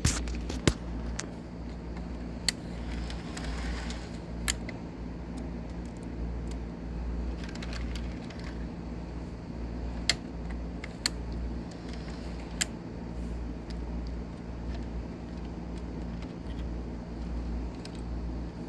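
Model train running on a layout track: a steady low motor hum with a handful of sharp, irregular clicks.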